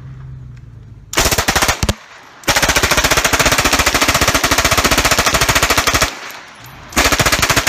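Submachine gun fired on full auto: a short burst, then a long burst of about three and a half seconds, then a short burst near the end. It is emptying its magazine.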